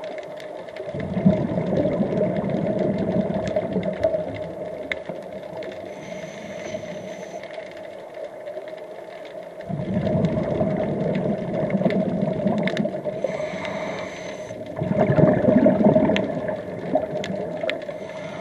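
Scuba diver breathing through a regulator underwater. Exhaled bubbles rush out three times, with short high hisses of inhaling between, over a steady faint hum.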